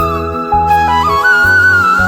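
Background music: a flute melody over steady low bass notes.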